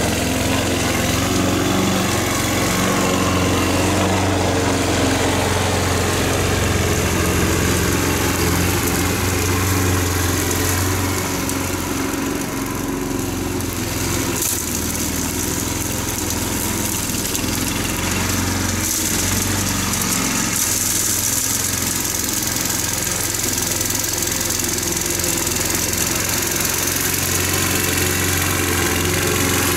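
Small gasoline engine of a walk-behind lawn machine running steadily under load, dipping slightly in level about twelve seconds in before carrying on.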